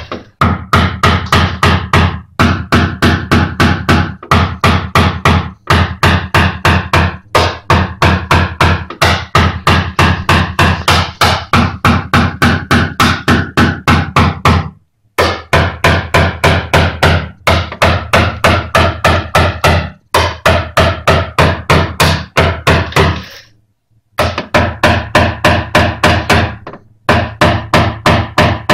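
PDR tap-down punch on a car's steel front wing, struck rapidly with a plastic-headed mallet, about five taps a second in runs of a few seconds with short pauses; each tap rings the sheet metal. This is knocking down high spots to move the metal around a crease.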